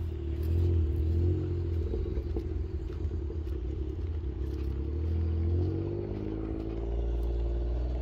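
Quad bike (ATV) engine running under way on a dirt track, its note rising and falling as the throttle changes, easing off briefly about two-thirds of the way through and then picking up again.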